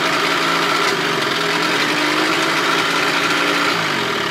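2000 Johnson 25 hp outboard running steadily in a test barrel, its pitch sliding down in the last half-second as the engine winds down to a stop.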